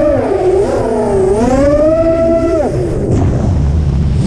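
Six-inch FPV racing quadcopter's motors whining, the pitch rising and falling with the throttle. About two and a half seconds in the pitch drops sharply and the motors go nearly quiet, leaving wind rumble on the onboard camera's microphone, before they spin up again at the very end.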